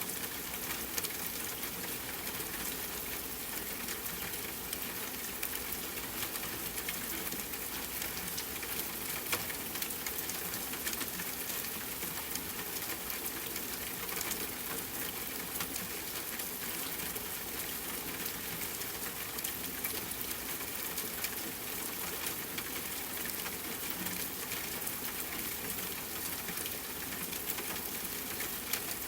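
Steady rain pattering on a tent, a dense run of small drop ticks, with campfire crackling mixed in.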